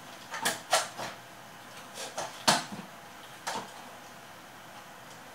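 Short knocks and rustles of hands handling the dismantled Akai GX-625 reel-to-reel deck's chassis and meter panel, about six in the first three and a half seconds, the loudest about halfway through, then quiet handling.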